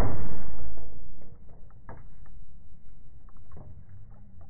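A .177 air rifle pellet striking a full can of spaghetti sauce, heard as the loud noisy aftermath of the impact fading away over about a second. Faint scattered ticks and taps follow as the sauce sprays and drips.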